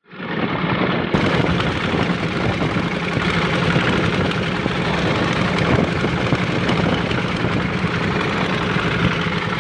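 An engine running steadily and close, starting abruptly and holding an even, loud drone.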